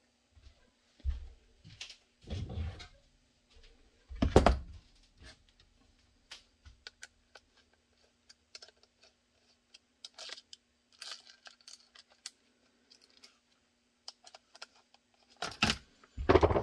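Small metal screws and Kydex holster hardware clicking and tapping as they are handled and fitted on a workbench, with a few louder knocks in the first five seconds and again near the end.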